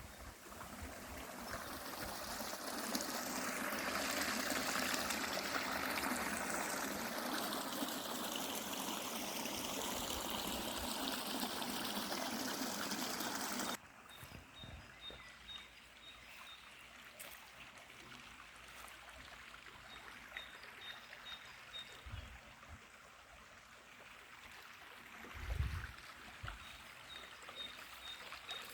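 Flowing water rushing steadily, with slowly sweeping shifts in its tone, cutting off abruptly about halfway through. A quieter outdoor hiss follows, with faint high-pitched chirps in short runs and a couple of low thumps.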